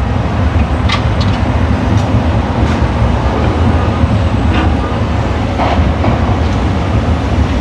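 Demolition excavator running with a steady low rumble, with scattered knocks and clatter of rubble breaking and falling.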